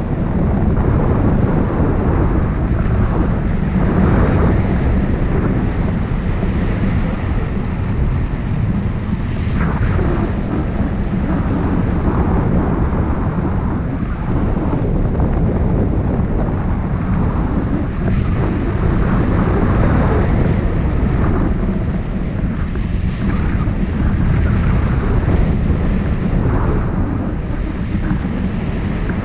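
Wind noise from the airflow over a hang glider in gliding flight buffeting the wing-mounted camera's microphone: a loud, steady low rush that swells and eases irregularly.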